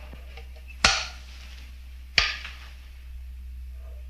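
Two sharp clicks about a second and a half apart, each with a short ringing tail: switches being thrown to turn on the force-field device.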